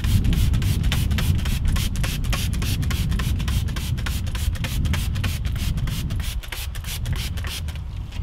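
Hand trigger spray bottle pumped rapidly: a quick run of short spraying hisses, several a second, over a steady low rumble. The spraying stops near the end.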